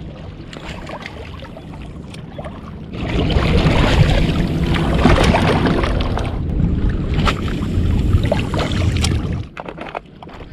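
Wind buffeting the microphone over water lapping against the rocks of a breakwater, with scattered handling knocks. The rush grows louder about three seconds in and eases shortly before the end.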